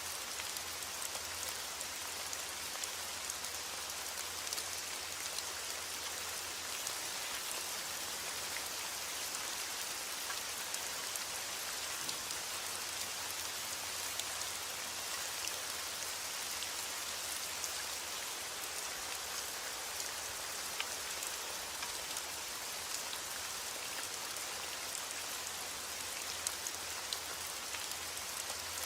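Steady rain falling, a dense patter of drops with fine individual taps and no thunder.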